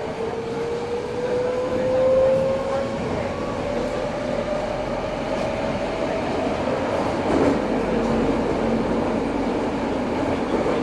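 Running sound inside an Eidan 03 series subway car: the VVVF inverter and traction motor whine rises steadily in pitch for about the first six seconds as the train accelerates, then levels off over steady wheel-and-rail noise.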